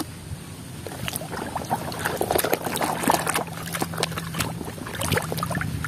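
Hands sloshing and scrubbing a plastic toy truck in a basin of muddy water, with irregular splashes and drips.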